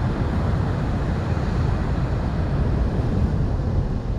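Wind buffeting the microphone in a steady low rumble, over the wash of heavy ocean surf.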